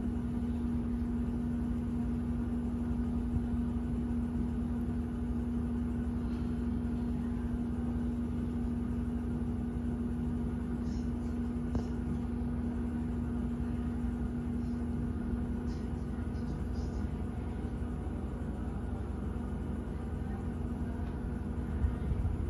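Steady low rumble with a constant hum, like a machine running. The hum fades about two-thirds of the way through, and a few faint ticks come through in the middle.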